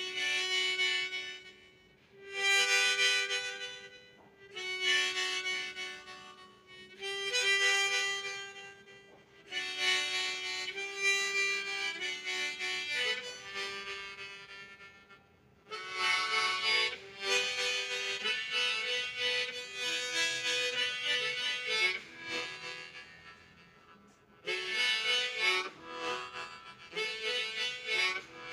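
Golden Cup harmonica in the key of E playing a melody in short phrases with brief pauses between them, the notes running on longer in the second half.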